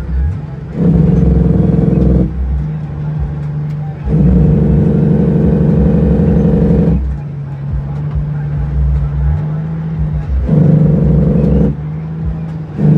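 Heavy truck's diesel engine heard from inside the cab as the truck drives. It swells louder several times, for one to three seconds each, between quieter, steady running, as the throttle is worked.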